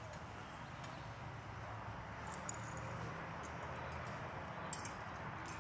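Footsteps on city pavement over a steady low street hum, with a few sharp clicks.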